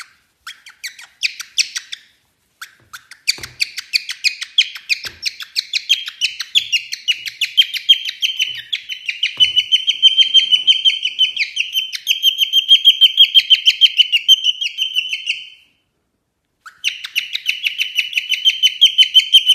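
Cockatiel calling in a rapid string of short, high chirps, several a second. They come scattered at first, then in a steady run that breaks off briefly about 16 seconds in and starts again. A few faint knocks of a hand wiping the laptop screen are also heard.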